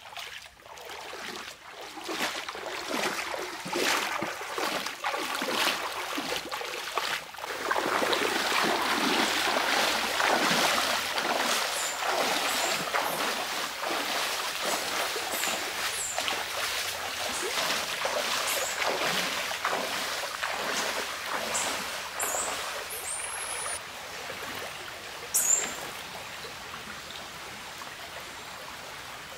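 Shallow stream flowing, with a person wading through it: irregular splashing of feet in shin-deep water, loudest through the middle, then easing off to the quieter steady flow near the end. A few short high chirps sound over the water, and one brief louder sound comes near the end.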